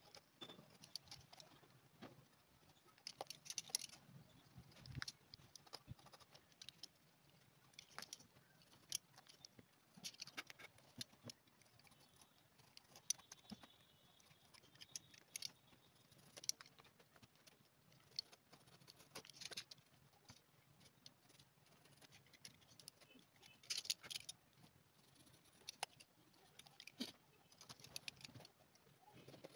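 Faint, irregular scratching and ticking of a small knife blade scraping crumbled old sole residue off the underside of a leather sandal, clearing it so the glue for a new sole will grip.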